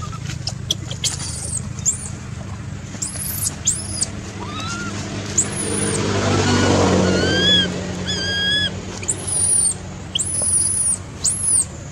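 Repeated short, high chirping calls, some rising and some arched whistles, over a steady low hum; a broad swell of noise builds and fades around the middle.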